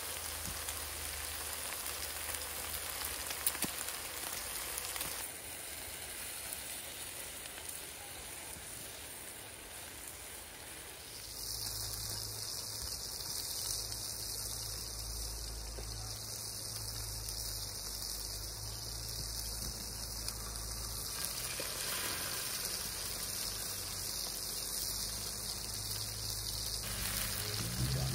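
Bacon, then French toast, sizzling in a nonstick frying pan on a portable butane camp stove: a steady frying hiss that changes about eleven seconds in, where a low rumble joins it.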